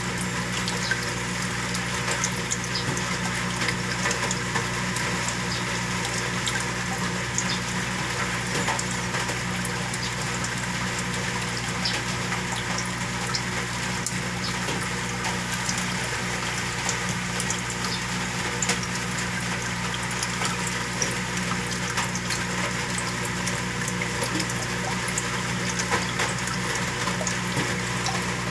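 Saltwater aquarium's water pump running: a steady hum under water flowing and bubbling, with small ticks scattered throughout.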